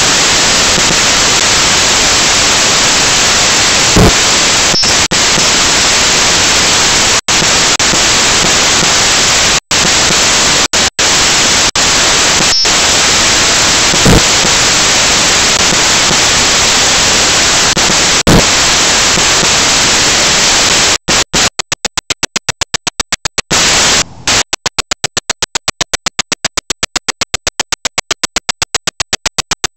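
Loud, steady hiss of static on a small camera drone's onboard recording, broken by a few sudden dropouts and three brief thumps. After about 21 seconds it stutters rapidly on and off, several times a second.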